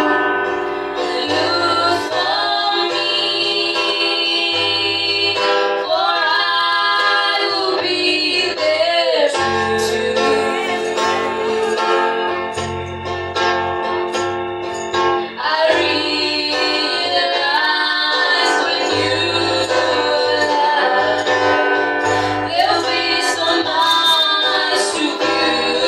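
Two girls singing a gospel song together into microphones, with a guitar playing along and a steady bass line underneath.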